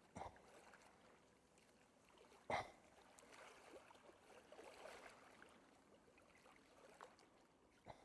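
Mostly near silence, with faint handling sounds of fishing tackle being loaded: a few soft clicks and one sharper knock about two and a half seconds in, as a spring feeder is packed with groundbait.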